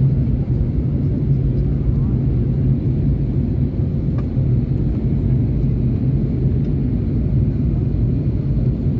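Steady low drone of an airliner in flight, heard from inside the cabin: engine and airflow noise.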